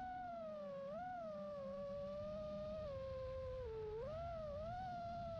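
5-inch FPV quadcopter's brushless motors and propellers whining, the pitch wavering up and down with the throttle, over a low rumble.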